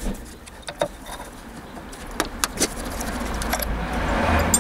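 Small metal clicks and ticks of a screwdriver and loose steel screws as the diaphragm cover screws of a motorcycle carburettor are taken out, about half a dozen scattered clicks. Under them a rushing noise builds from about halfway through and is loudest near the end.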